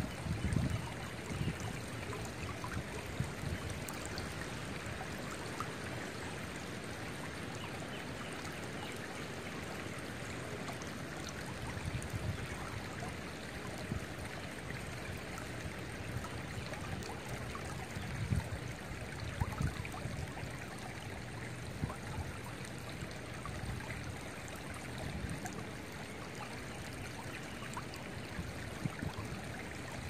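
Shallow rocky creek flowing steadily over stones and riffles, a constant babbling rush of water. A few brief low rumbles of wind on the microphone, near the start, about twelve seconds in and around eighteen to twenty seconds in.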